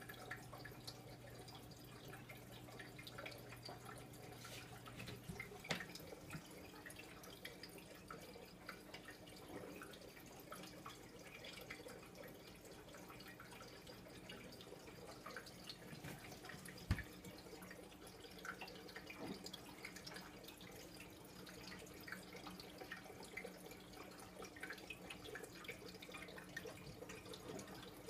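Faint trickling and dripping of aquarium water, with many small bubbling ticks from the tank's air bubbler and filter, over a steady low hum that drops out about five seconds in. A single sharp tap sounds about two-thirds of the way through.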